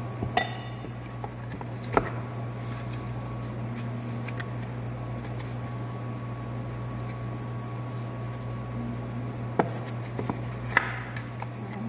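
Hands handling and folding thin sambosa pastry wrappers on a counter: faint papery rustling and a few sharp taps, about four in all, over a steady low hum.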